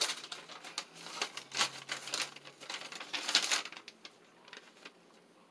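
Crinkling and rustling of a sheet being handled, a quick run of small crackles that dies away about four seconds in.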